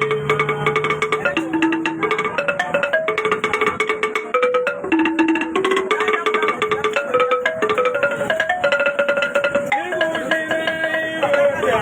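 Music: a melody of held, stepping notes over fast, dense percussion.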